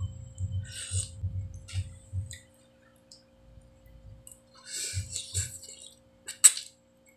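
Close-up eating sounds from noodle soup: irregular chewing and mouth noises, then a noisy slurp of noodles about five seconds in, and one sharp click near the end. A faint steady hum runs underneath.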